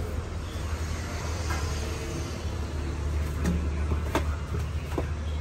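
Street-stall ambience: a steady low hum with three light knocks in the second half.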